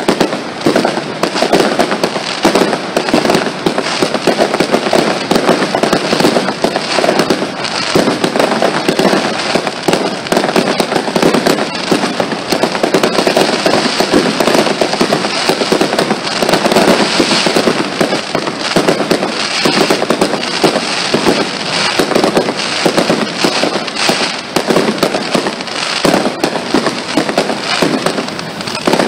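Fireworks display: a dense, continuous barrage of bangs and crackling.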